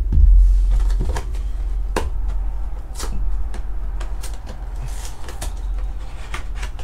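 Cardboard trading-card hobby box being handled and opened by hand, with its wrap crinkling and the cardboard giving irregular sharp knocks and scrapes. A low rumble of handling noise runs under it.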